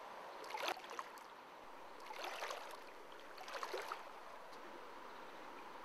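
A person wading through a shallow river, legs sloshing through the water in three splashing steps about a second and a half apart, over the faint steady rush of the stream.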